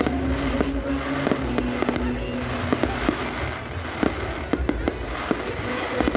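Aerial fireworks going off: a rapid, irregular string of sharp bangs over a continuous low rumble.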